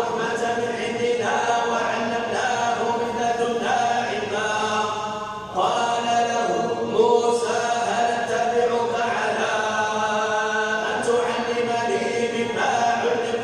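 Quran recitation in melodic chant, male voice sustaining long drawn-out notes phrase after phrase, with a brief pause for breath about five seconds in.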